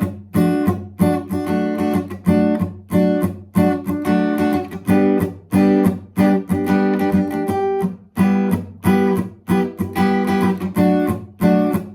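Acoustic guitar strummed in short, sharp strokes on the top four strings, about two chords a second, each one cut off quickly before the next.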